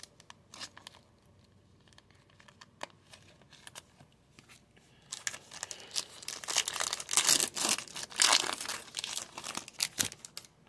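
A Topps Star Wars Chrome trading-card foil pack being torn open: faint scattered crinkles of handling at first, then from about five seconds in a dense, loud crinkling and tearing of the wrapper that stops just before the end.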